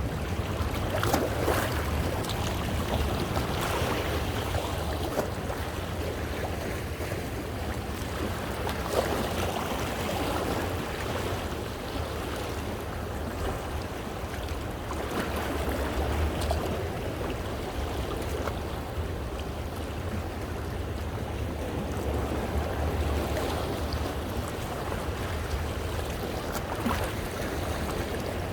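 Sea waves washing over and splashing against shore rocks, swelling and easing every few seconds, with short splashes as water breaks over the rock.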